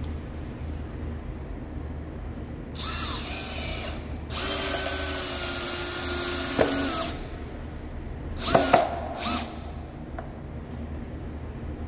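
Cordless drill/driver driving a long screw into stacked pine 2x10 boards, the motor whining in runs: a short run, a longer run of about three seconds ending in a sharp click, then two quick bursts as the screw is run home.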